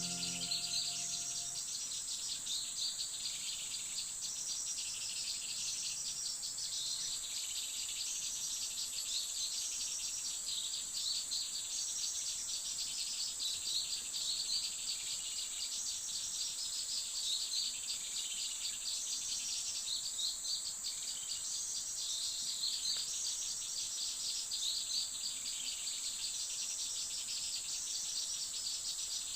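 Steady high-pitched insect drone of crickets or cicadas, with a chirping pattern repeating every second or two.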